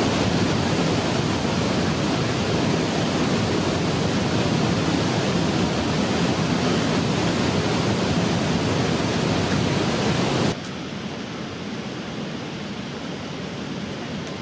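Steady rushing noise with no distinct tones. It drops suddenly to a quieter level about ten seconds in.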